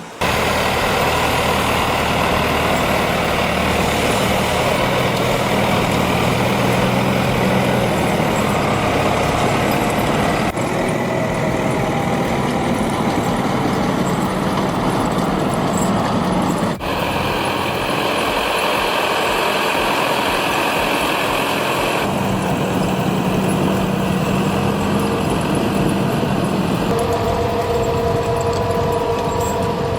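Tractor engine running steadily while powering a Kesla forestry trailer's hydraulic log loader. The engine note changes abruptly about four times as the shots change.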